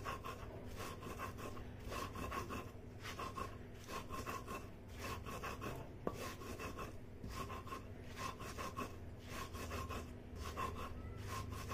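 A hand stone grinding on a flat stone slab (sil-batta), scraping back and forth through a wet salt, green chilli, red chilli and cumin paste. The strokes come rhythmically, about two a second.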